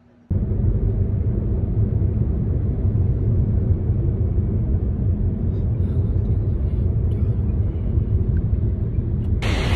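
Steady low rumble of a car in motion, heard from inside the cabin. Near the end it cuts abruptly to a brighter, steady hiss.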